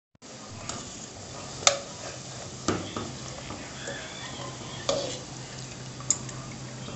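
Oil sizzling steadily around dough biscuits frying in an aluminium pot, with a metal slotted skimmer clinking against the pot several times as the biscuits are turned and scooped out.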